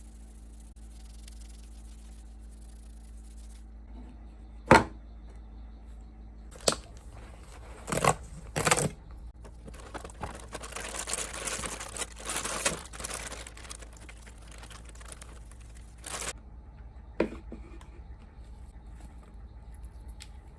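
Handling noises: several separate sharp knocks, the loudest about a quarter of the way in, and a few seconds of rustling near the middle.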